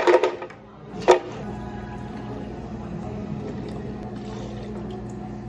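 Cafe counter work noise: a clatter at the start and a sharp knock about a second in, over the steady hum of a running machine.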